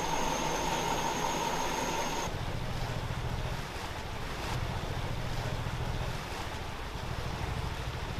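A heavy vehicle's engine running low and steady while it moves through floodwater, with water washing around it. For the first two seconds a steady high whine and a mid-pitched hum sit on top; they stop suddenly at a cut, leaving the low engine sound and the water.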